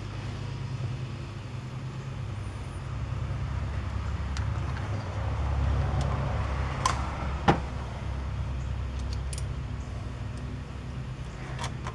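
A steady low hum in the background, with a couple of sharp clicks about halfway through from a screwdriver and hands working on the carburetor of a chainsaw that is not running.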